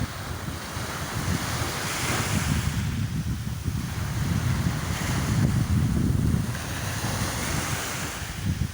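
Sea waves washing in, swelling twice, with wind buffeting the microphone in a gusty low rumble.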